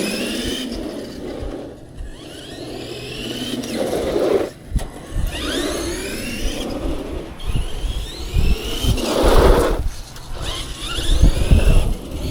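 Brushed electric motor of a 1/10-scale RC monster truck whining up in pitch in about half a dozen short bursts of throttle, with low rumbling from the truck running over rough ground.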